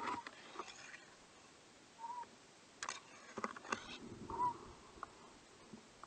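Faint short whistled calls, each a single soft rising-and-falling note, about one every two seconds, with a few faint clicks and rustles between them.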